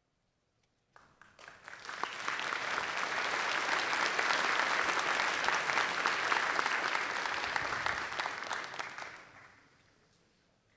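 Audience applauding: the clapping starts about a second in, swells to a steady level, and dies away about nine to ten seconds in.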